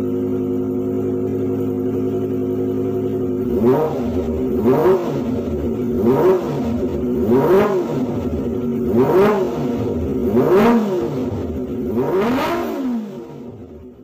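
Sport motorcycle engine through an aftermarket stainless slip-on racing exhaust, idling steadily and then revved in seven quick throttle blips, each rising and falling back to idle, before fading out near the end.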